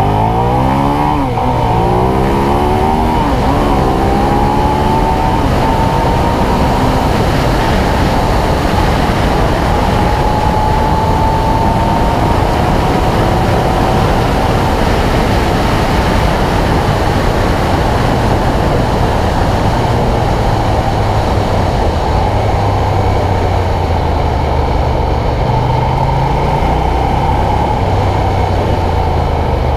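Ducati Diavel's V-twin engine heard from on board, accelerating hard from a standstill with the revs climbing and dropping back through several gear changes over the first few seconds. It then runs at steady high speed under a constant rush of wind noise.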